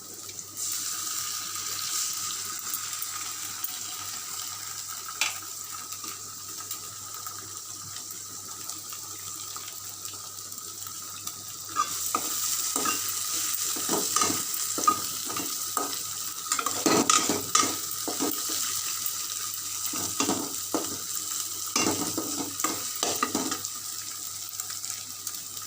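An egg scrambling in a frying pan with onion and spice masala, sizzling steadily while a spatula stirs it. From about halfway through the sizzle grows louder and the spatula scrapes repeatedly against the pan.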